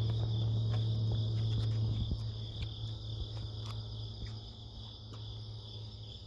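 Steady, high-pitched chorus of crickets. Under it a continuous low hum fades away after about two seconds, with a few faint clicks.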